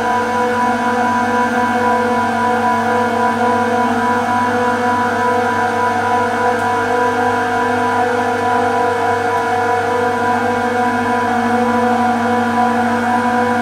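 Refrigeration screw compressors running: a steady machine hum made of several evenly stacked tones.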